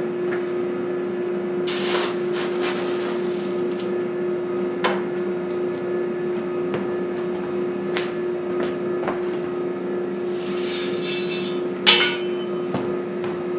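Steady hum of the EFM coal stoker's blower motor, with scattered light ticks throughout. Just before twelve seconds in, a poker clanks against the open firebox door.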